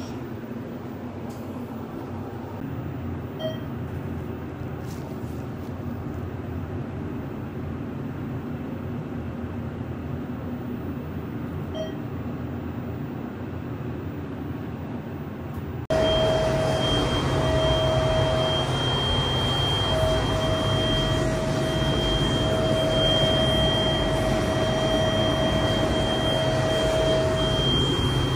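Thyssenkrupp hydraulic elevator's machinery heard from inside the car: a steady low hum, then about halfway through a sudden step to louder running with a steady whine that breaks off briefly a few times. The pump starts but fails to lift the car, which the owner puts down to a pump problem or tired, hot oil.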